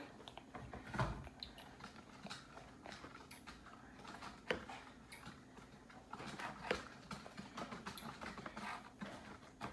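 Faint, scattered light taps and clicks: small bottles and bowls being handled on a table while food colouring is squeezed in drop by drop.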